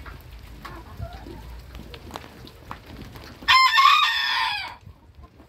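Booted bantam rooster crowing once, a single crow of just over a second starting about three and a half seconds in, with soft hen clucks before it.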